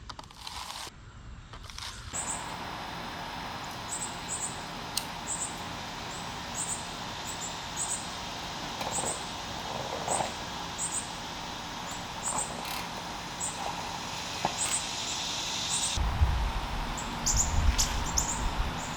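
Small birds chirping: short, high chirps repeated again and again over a steady background hiss. A low rumble joins in for the last few seconds.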